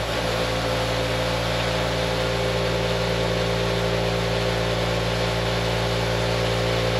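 Electric vibrating motor shaking a steel feeder tray loaded with dirt: a steady hum with an even buzz. Its eccentric counterweights are set to slow the feed, and the owner judges the feed still too slow.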